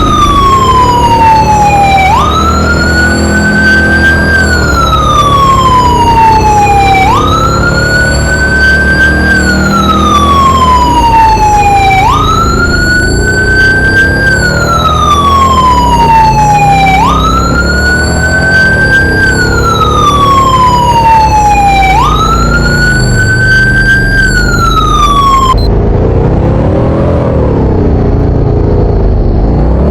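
Fire engine's electronic siren in wail mode: a quick rise in pitch, then a slow fall, repeating about every five seconds. It cuts off about 26 seconds in, leaving the low rumble of the vehicle.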